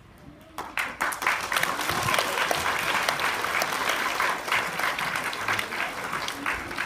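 An audience of schoolchildren applauding, starting about half a second in and easing off toward the end.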